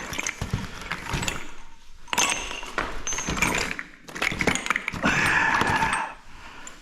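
Metal fire-sprinkler heads clinking and clattering against one another as the pile is stirred and handled, in several runs of clatter with short pauses between.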